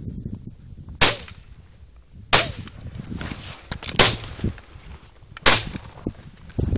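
Four loud, sharp crunching knocks about a second and a half apart, in the rhythm of strides: someone walking on hunting skis through crusted snow, with the handheld camera jolting at each step.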